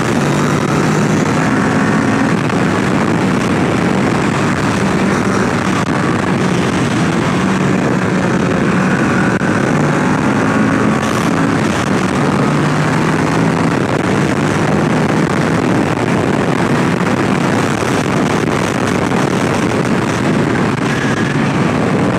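2018 Kawasaki Ninja 650's parallel-twin engine running under way, heard from the rider's position. The engine note rises and falls with throttle through the bends, over a steady rush of wind and road noise.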